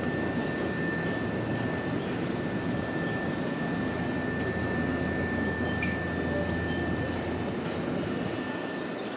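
Nankai 50000 series rapi:t electric train running away down the line, a steady low rumble that eases slightly near the end.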